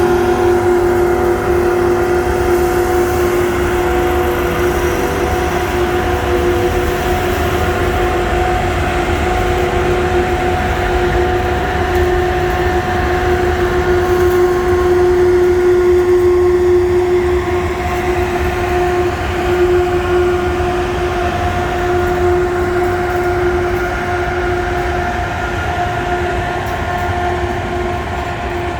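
Tanker train hauled by class 18E electric locomotives running through the station: a steady low rumble from the train with a constant multi-tone whine from the locomotives, easing off slightly in the second half.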